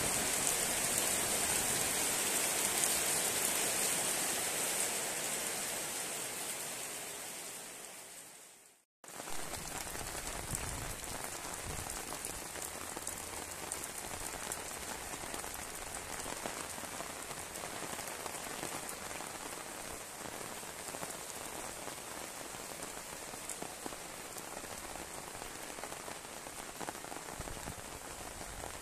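Heavy rain falling, a dense, even hiss. It fades away about nine seconds in, drops out for a moment, then comes back a little quieter and steady.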